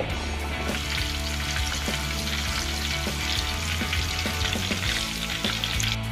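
Breaded shrimp deep-frying in hot oil: a dense crackling sizzle that starts under a second in and cuts off just before the end, over quieter background music.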